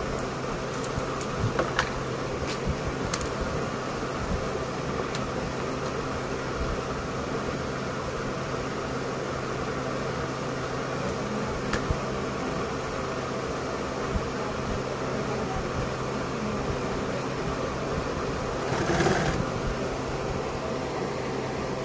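Steady electric motor hum, with a few light clicks in the first three seconds and a brief rustle about nineteen seconds in as the synthetic-leather bag pieces are handled on the table.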